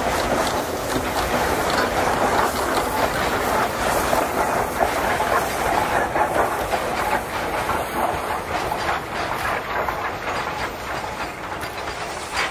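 Loaded coal hopper wagons rolling past, their wheels clicking over the rail joints in a steady rapid rhythm.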